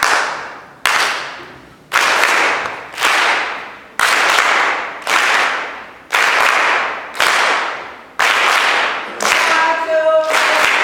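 An audience clapping together in a steady beat, about one clap a second, each clap trailing off briefly. A voice joins near the end.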